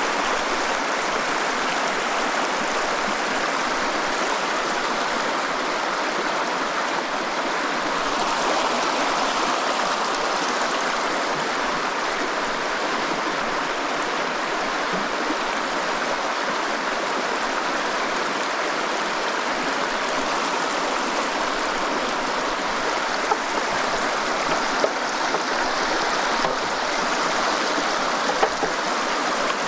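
Steady rush of flowing stream water, with a few small ticks in the last few seconds.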